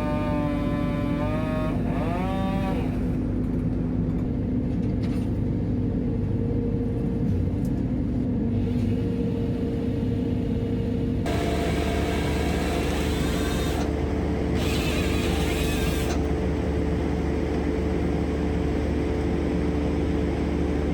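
Merlo crane's diesel engine running steadily, with a gliding whine in the first couple of seconds. About eleven seconds in the engine note grows deeper and fuller, as under hydraulic load, and a hiss comes in for about two seconds shortly after.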